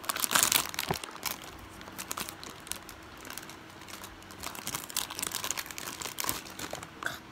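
Ice cream packaging crinkling as it is handled, a run of quick crackles that is loudest in the first second and then grows sparser.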